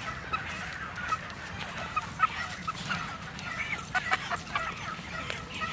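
Live chickens clucking, many short calls overlapping, with a few light knocks among them.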